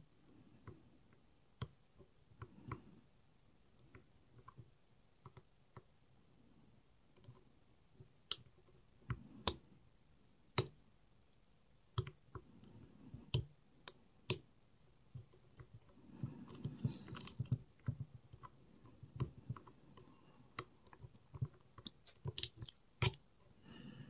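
Lock picks working inside a Robur 2391 safe deposit box lock: scattered small, irregular clicks and scrapes, with a spell of quicker clicking and handling noise about two-thirds of the way through.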